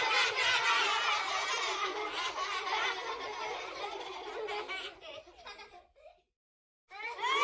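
Small studio audience of children laughing together, fading away about five to six seconds in. After a brief silence, a new burst of children's crowd voices starts near the end.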